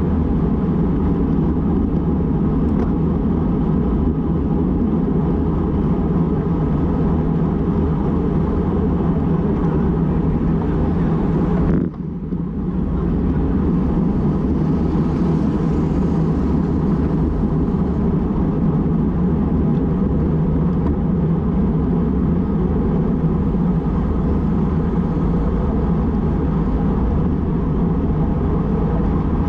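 Steady wind rushing over the microphone of a bicycle-mounted action camera at about 50 km/h. It dips sharply for a moment about twelve seconds in, then comes back.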